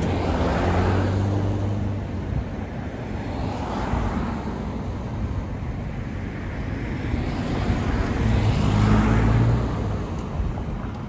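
Road traffic passing close by: engine hum and tyre noise swelling and fading as vehicles go past one after another, with heavier passes about a second in and again near the end.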